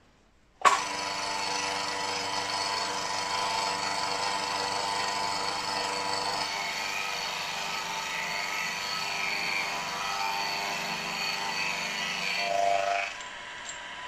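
Milling machine with an insert face mill cutting across the top of a small metal casting held in a vise: a steady motor and spindle whine with the hiss of the cut. It starts suddenly about half a second in and drops to a quieter run near the end.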